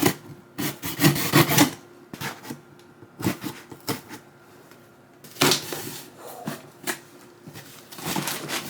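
Cardboard shipping packaging being handled and opened by hand: bursts of rubbing, rustling and knocks, clustered about a second in, again around five and a half seconds, and near the end.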